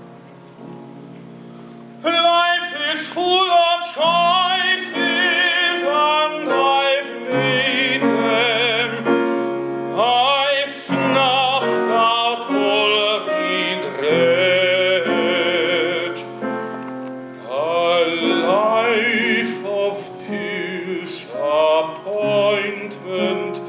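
Male tenor singing in an operatic musical-theatre style with strong vibrato, in long held phrases over piano accompaniment. The piano plays alone for about the first two seconds before the voice comes in.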